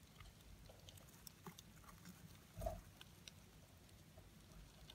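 Faint, scattered ticks and scratches of Blaptica dubia cockroaches crawling over and chewing an orange, with one soft thump a little past halfway.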